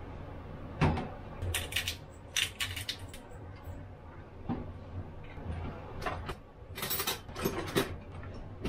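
Kitchen clatter of utensils: a spatula clinking against a plate and laid down in a frying pan, then a cutlery drawer pulled open and the utensils in it rattling. The sound is a run of sharp, irregular clinks and clacks, busiest near the end.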